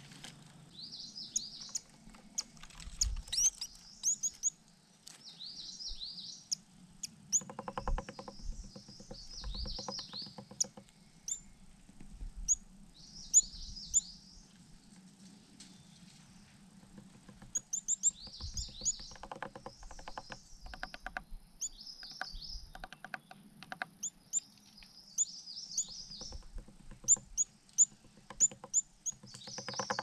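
Chestnut-vented nuthatch at its nest hole: many short high chirping calls, with several bursts of rapid tapping and scattered dull knocks as its bill works mud at the entrance of the nest.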